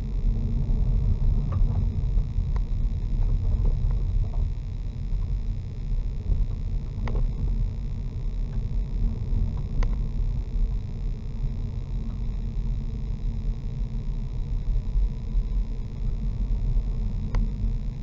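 Car driving, heard from a dashcam inside the cabin: a steady low rumble of engine and tyres, with a few brief sharp ticks scattered through it.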